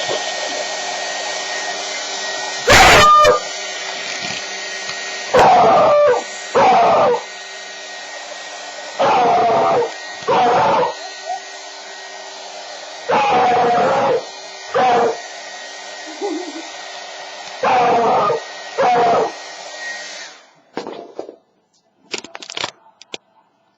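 A hair blow dryer runs steadily while a frightened beagle puppy howls over it in loud cries, mostly in pairs about every four seconds, the pitch falling in each. The dryer cuts off about twenty seconds in.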